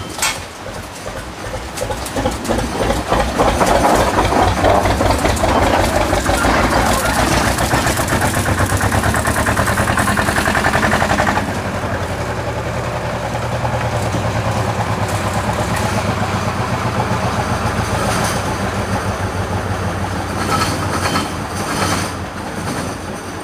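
Narrow-gauge steam locomotive Walrus working along the line with rapid, even exhaust beats and running noise, loudest through the first half, then dropping to a quieter steady level about halfway through.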